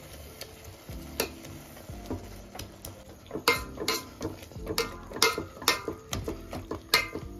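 Steel spoon mashing soft-cooked pumpkin in a steel pot, scraping and clinking against the pot's sides. The sharp metal clinks grow louder and more frequent about halfway through.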